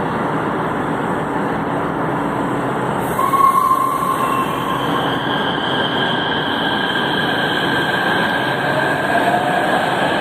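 CAF-built electric metro train pulling out of an underground station over a steady rumble of wheels and running gear. About three seconds in there is a short tone with a burst of hiss. After that, tones rise slowly in pitch as the train gathers speed.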